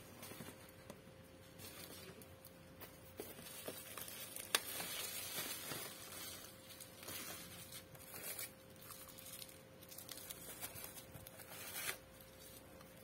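Bubble wrap and plastic packaging rustling and crinkling in irregular bursts as it is handled, with one sharp click about four and a half seconds in.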